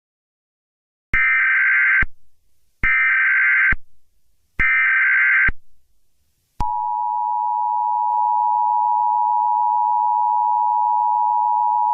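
Emergency Alert System tones. Three short, evenly spaced bursts of SAME header data sound first. About six and a half seconds in, the steady two-tone EAS attention signal begins and holds.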